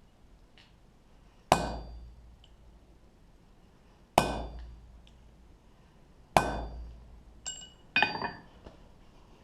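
Hammer striking a steel punch into an iron die, punching the pips: three heavy blows about two seconds apart, each ringing briefly, then two lighter taps near the end.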